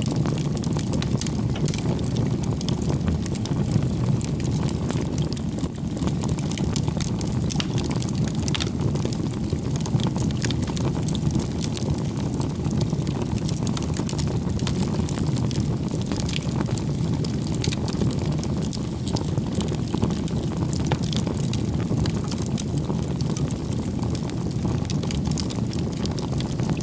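Wood bonfire burning: a steady low rush of flames with frequent small crackles and pops from the burning wood.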